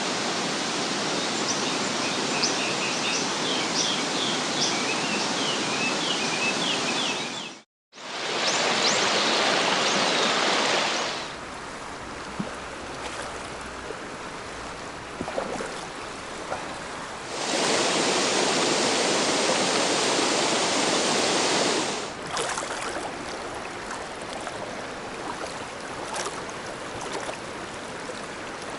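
River water rushing steadily, with a songbird chirping over it for the first few seconds. The rush drops out briefly and then alternates between louder and quieter stretches.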